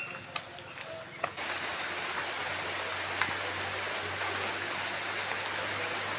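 Rain falling as a steady hiss with scattered ticks of drops. It comes in suddenly and much louder about a second in. Before that the rain is fainter, with a few short chirps and clicks.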